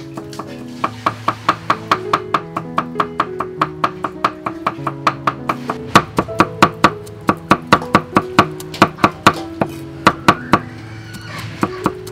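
Cleaver chopping garlic on a thick wooden chopping block: quick, even strokes at about three a second, which stop shortly before the end. Background music plays underneath.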